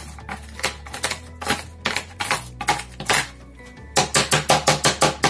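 Wooden rolling pin striking nuts inside a plastic bag on a cutting board, crushing them. First come irregular knocks, then from about four seconds in a fast, even run of blows, about six a second. Background music plays underneath.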